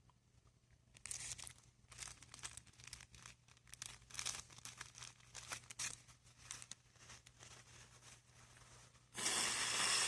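Irregular crinkling and crackling, a quick run of crackles starting about a second in. Near the end comes a louder, even rush of noise lasting about a second and a half.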